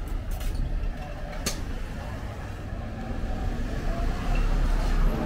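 Street traffic: vehicle engines running with a steady low rumble, growing louder about four seconds in. There are a couple of sharp clicks early.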